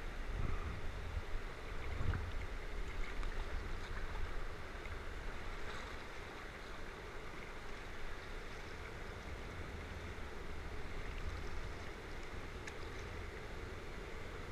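Steady rush of fast-flowing river water around a kayak, with a low rumble underneath, a little louder in the first few seconds.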